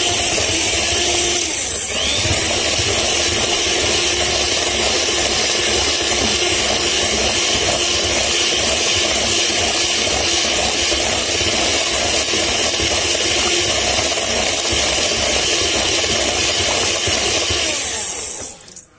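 Electric hand mixer running steadily at a constant speed, its twin beaters whisking cake batter; the motor switches off near the end.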